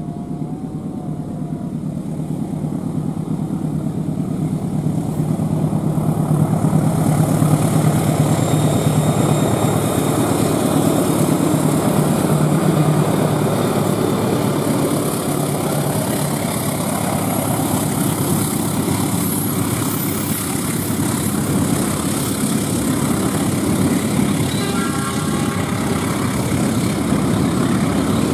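Diesel locomotive of a freight train approaching and passing. Its engine hum grows louder over the first few seconds and peaks about seven to thirteen seconds in, then gives way to the steady rumble of the wagons rolling by.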